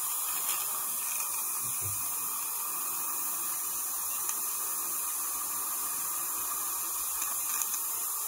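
Steady hiss with a faint hum from dental suction running through a Nola dry-field system at the patient's mouth, with a few faint clicks.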